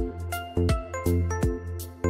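Background music with a steady beat: low bass notes recurring about every three-quarters of a second under short, bright melody notes.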